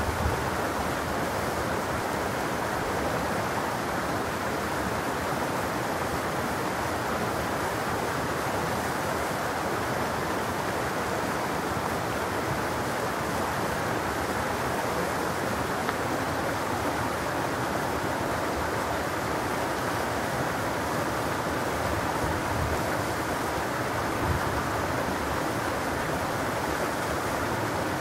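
Clear mountain stream running steadily over boulders in small cascades, an even, unbroken sound of water.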